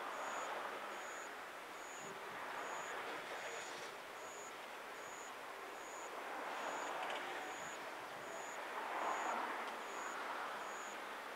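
Steady rushing background noise that swells and fades every few seconds, with a faint, short, high-pitched tone repeating a little more than once a second.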